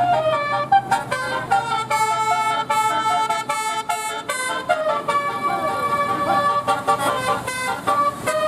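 Bus telolet horn, a multi-tone musical air horn, playing a quick tune: several notes sound together and step up and down every fraction of a second.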